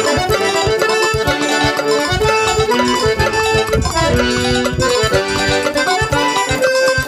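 Background music: an accordion playing a lively melody over a steady, quick low beat, in a traditional folk style.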